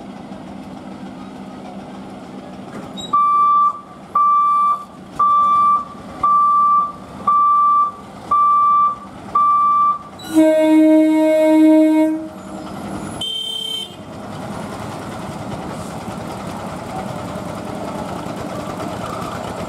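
An electronic vehicle beeper sounds seven times, about once a second. Then comes a loud horn blast of about two seconds and a short higher-pitched honk, followed by a steady rising rumble of traffic.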